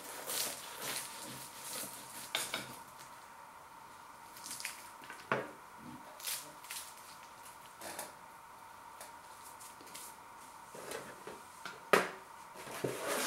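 A knife cutting through a flaky baked pastry on a plate, with scattered clicks and scrapes of the blade against the plate; the loudest clack comes near the end.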